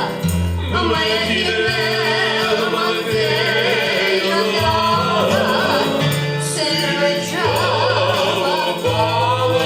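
A Gypsy (Romani) song performed with singing and band accompaniment. The voice is held with a wide vibrato over a bass line that steps from note to note.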